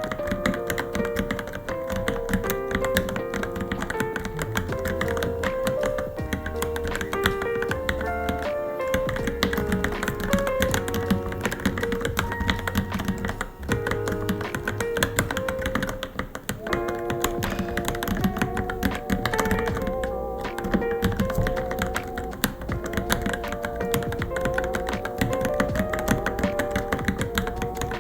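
Continuous fast typing on a Varmilo Minilo keyboard, a rapid stream of key clicks and thocks, with background music playing a melody throughout.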